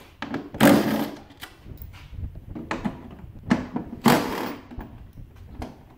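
Cordless power driver with a socket spinning out headlight mounting bolts in two short bursts, about half a second in and again about four seconds in, with light clicks and knocks of parts being handled in between.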